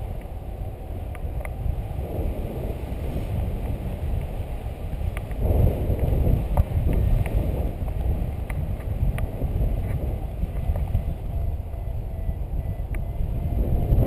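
Wind buffeting the camera microphone in paraglider flight: a steady low rumble that gusts louder about five and a half seconds in, with a few faint ticks.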